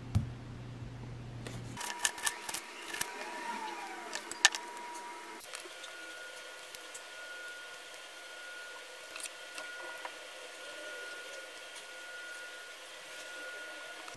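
Kitchen knife slicing a tomato, with a run of sharp taps and knocks of the blade on a bamboo cutting board from about two to four and a half seconds in, then only occasional soft ticks. A faint steady high whine sits underneath.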